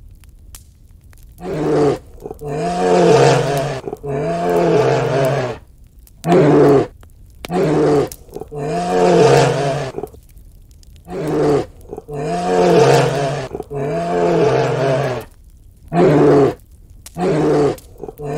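A bear roaring: about a dozen loud calls, each arching up and down in pitch and lasting from under half a second to about a second and a half, with short gaps between them, beginning about a second and a half in.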